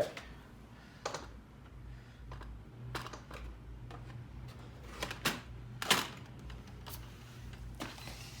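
Scattered light clicks and knocks of padlocks and their packaging being handled, the loudest about six seconds in, over a faint steady low hum.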